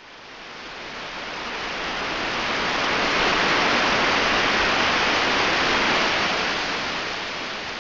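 Waterfall: a steady rush of falling water that swells up over the first three seconds and fades away near the end.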